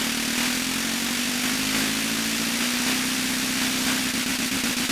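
PO-32 Tonic pocket operator's snare drum retriggered so fast (four triggers per step at top tempo) that the hits blur into a steady buzzing drone: a hissing noise with a held low pitch underneath.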